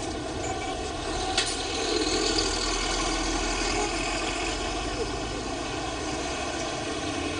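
Engine of a Hyundai coach running steadily as it pulls away, over steady street noise, with a sharp click about a second and a half in.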